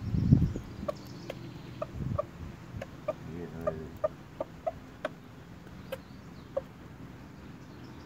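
Bantam rooster giving about a dozen short, clipped clucks, spaced unevenly over several seconds, while pecking at food on the ground: the tidbitting food call a rooster uses to call hens over. A low rumble at the start, and a smaller one about two seconds in, is the loudest sound.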